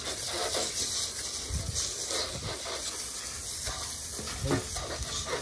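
Garden hose spraying water in a steady hiss while dog bowls are rinsed, with a few dull knocks as the bowls are handled.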